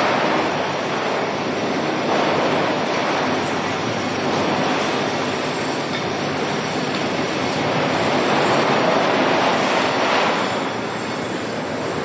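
Steady, dense rumble and metallic clatter of foundry machinery, a continuous loud din that swells a little and then eases off shortly before the end.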